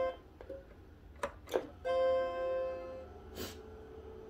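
Two clicks, then the Macintosh IIfx's startup chime, one steady chord held for about a second, as the computer is restarted after a failed start. A sharp click and a faint steady hum follow.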